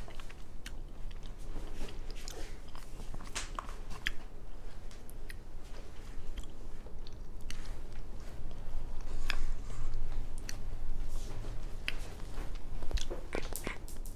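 A person chewing and biting food close to a clip-on microphone, with irregular crunches and small clicks.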